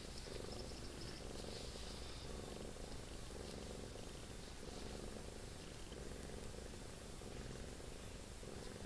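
Domestic cat purring steadily, its purr swelling and fading with each breath about once a second.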